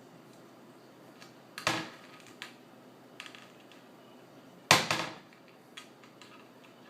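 Cupboard door knocked and rattled as a cat works it open: two loud knocks about three seconds apart, with lighter taps and clicks between and after.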